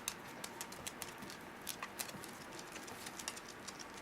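Miniature dachshund puppies scuffling at play: faint, irregular light clicks and scratches, several a second.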